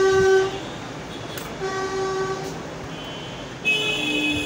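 A series of long, steady pitched tones. The first fades out about half a second in, the second sounds about two seconds in, and a third, lower but with a brighter edge, starts near the end and holds.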